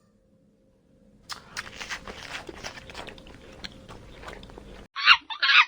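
Crackly crunching and clicking for a few seconds, like an animal chewing, then loud, repeated animal calls with a ringing pitch starting near the end.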